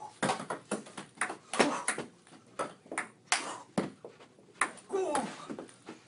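Table tennis rally: a plastic ping-pong ball clicking sharply off paddle and table, about two hits a second at an uneven pace, in a small room.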